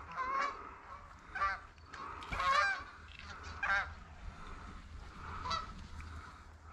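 Canada geese honking, a series of about five separate honks over a faint steady murmur of more geese, the loudest about two and a half seconds in.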